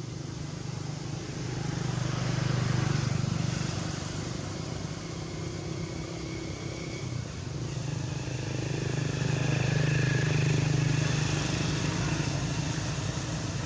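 Steady low hum of a motor vehicle engine in the background, growing louder and fading twice, a few seconds in and again in the second half.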